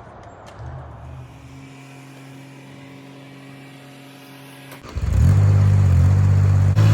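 A quiet engine runs steadily. About five seconds in, a much louder engine starts up or throttles up, its pitch sweeping up quickly, then runs steadily.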